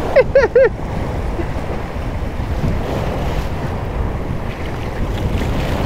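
Sea surf washing against a rocky shoreline, with wind rumbling across the microphone; a steady noise with no distinct events.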